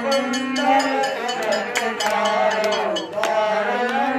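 A group of voices singing a Hindu aarti hymn together, with a small metal hand bell rung steadily at about four strikes a second.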